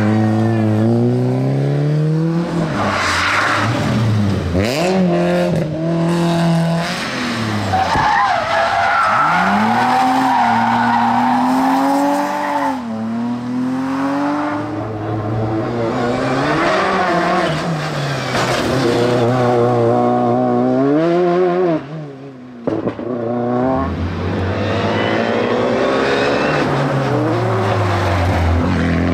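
Several hillclimb race cars, one after another, accelerating hard out of hairpins. Their engines rev up and drop back repeatedly through gear changes, with a stretch of tyre squeal in the first half.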